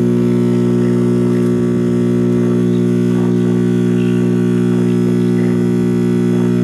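Loud, steady hum from a 1965–66 GE C1530 tube AM/FM clock radio's speaker, with faint snatches of a station coming through as it is tuned; the hum is the sign of a bad filter capacitor.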